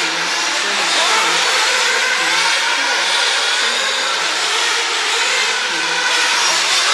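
Several radio-controlled off-road race cars running together, their motors revving up and down at different pitches, overlapping.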